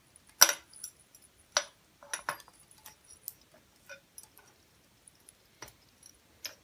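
Scattered light clicks and small metallic clinks from handling a ceiling fan's light kit while its wires are pushed into push-in connectors. The sharpest clicks come about half a second and a second and a half in.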